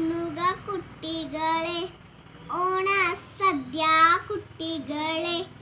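A young girl singing alone, without accompaniment, in short sung phrases with a brief pause for breath about two seconds in.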